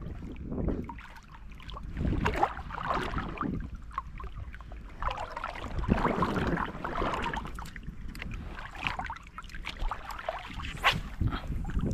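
Wind rumbling on the microphone, with irregular swishes and splashes of shallow water as someone wades, and a sharp splash or knock near the end.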